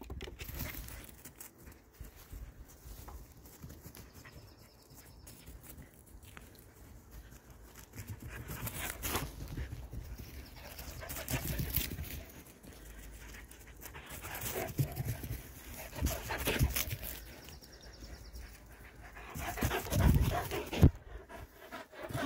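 A greyhound heard at play on grass, among irregular rustling and short knocks from a handheld phone moving about. A heavy thump about twenty seconds in is the loudest sound.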